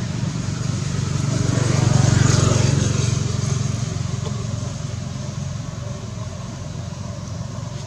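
A motor vehicle driving past, its engine hum growing louder to a peak about two seconds in, then slowly fading.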